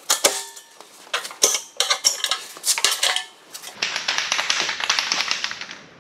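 Sharp metallic clinks and clanks as a metal wheel cover is pried off an RV's rear dual wheel, a few of them ringing briefly. From a little past halfway, an aerosol can of white lithium grease hisses steadily for about two seconds as it is sprayed onto rusty lug nuts before they are removed.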